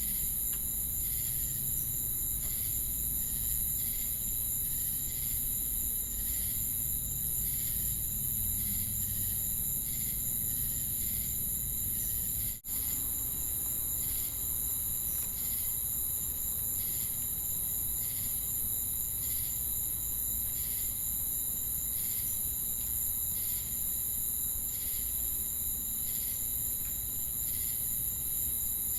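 Night insect chorus of crickets and cicadas: a steady high-pitched shrill with a rhythmic chirp repeating just under twice a second. The sound drops out for an instant about twelve and a half seconds in.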